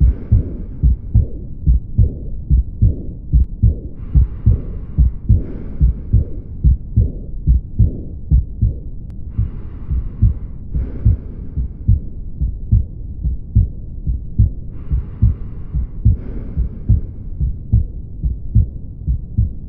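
Heart sounds heard through a stethoscope: a steady, regular lub-dub beat. This is an auscultation recording of aortic regurgitation (aortic insufficiency), a leaking aortic valve. A soft hiss rises and fades every five or six seconds.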